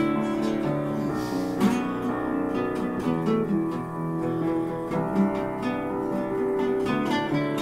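An upright piano and a strummed acoustic guitar playing a song together, with no singing.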